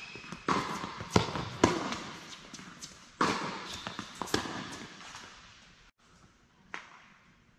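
Tennis ball struck by rackets and bouncing on an indoor hard court during a rally: a string of sharp hits, each echoing around the hall. The hits come thickest in the first two seconds and grow fainter and sparser toward the end.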